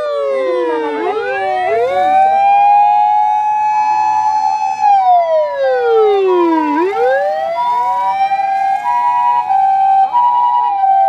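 Emergency vehicle sirens: a wailing siren that slowly falls and rises, with overlapping copies of the sweep. From about four seconds in, the alternating two-note hi-lo "pee-paw" of a Japanese ambulance siren sounds over it.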